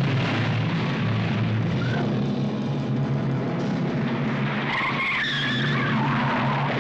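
Car engine running hard while its tyres squeal through bends. The squeal wavers in pitch and is strongest from about two-thirds of the way in.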